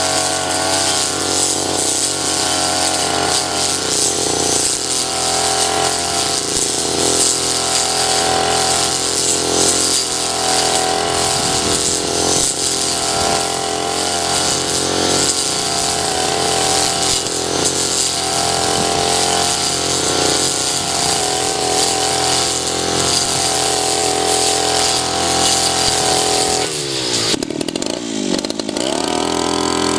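Backpack two-stroke brush cutter running as its 40 cm metal blade cuts grass, the engine note wavering slightly as the blade sweeps. Near the end the engine speed drops sharply, then rises again.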